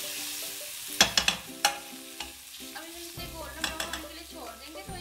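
Ginger-garlic paste sizzling in a little oil in a nonstick frying pan while a steel spoon stirs it, frying toward golden brown. A few sharp clicks of the spoon against the pan come about a second in.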